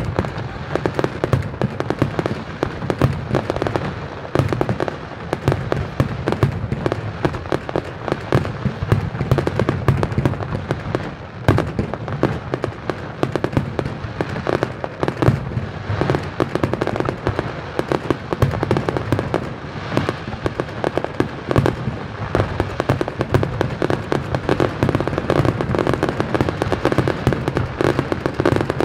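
Fireworks display: aerial shells bursting in a rapid, unbroken run of bangs, many a second.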